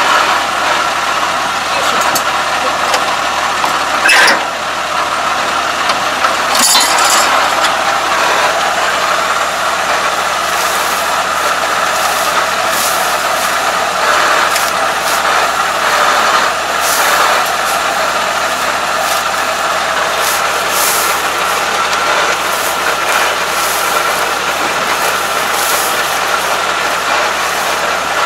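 A steady machine running noise, with rustling and scraping now and then as clogged rice straw is pulled by hand out of a combine harvester's cutting section.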